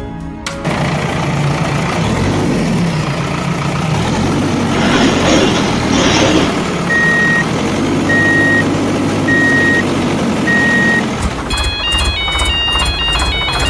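Truck engine running steadily, with a reversing beeper sounding four times about a second apart in the second half. A bright melody takes over near the end.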